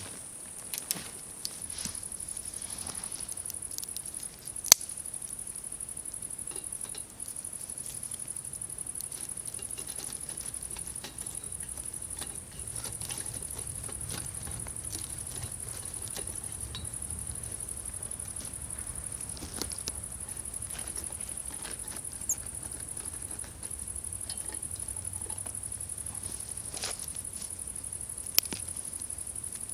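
A steady high-pitched insect chorus, with sparse crackles and pops from sticks burning in a small firebox wood stove; a sharp pop about five seconds in and another near the end.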